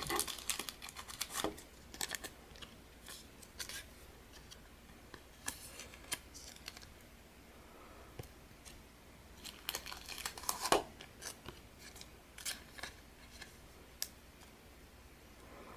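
Pokémon trading cards being slid into soft plastic card sleeves: light, scattered rustles and clicks of plastic and card, loudest about ten seconds in.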